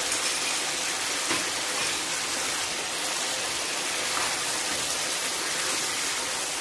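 Chicken pieces frying in ketchup and chilli sauce in a non-stick frying pan: a steady sizzle, with the pan's contents stirred by a plastic slotted spoon and a faint tick about a second in.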